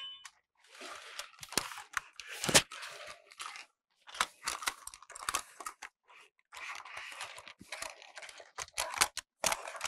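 Hands handling and turning a large plastic Thomas the Tank Engine toy: irregular bursts of scraping and rustling, with sharp plastic clicks and knocks, broken by short silences.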